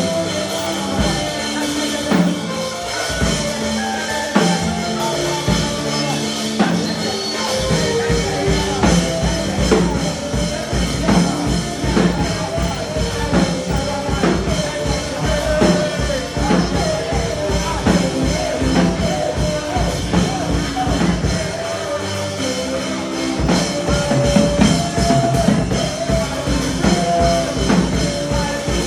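Gospel worship music with a drum kit, a bass line and a melodic lead, played at a steady beat. The kick drum comes in fully about seven seconds in, drops out briefly, and returns near the end.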